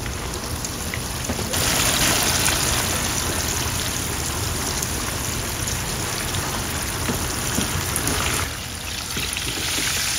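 Pieces of fish deep-frying in a wide pan of hot oil: a steady crackling sizzle. It grows louder about a second and a half in and eases back briefly near the end.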